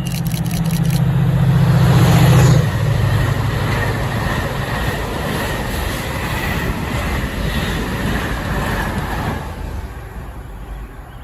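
Class 68 diesel locomotive's Caterpillar C175-16 engine working under power, its deep hum loudest about two and a half seconds in, then the rumble of the train that fades away near the end.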